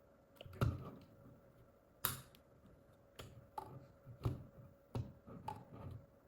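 Hands handling a small plastic gadget and its packaging: a string of irregular clicks and light knocks with brief rustles, the sharpest click about two seconds in.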